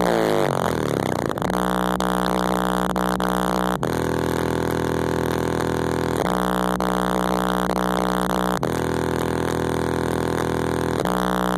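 Kicker L7 15-inch subwoofers playing a bass track at high power: sustained, buzzing bass notes that switch back and forth between a higher and a lower pitch about every two and a half seconds, after a short gliding sweep at the start.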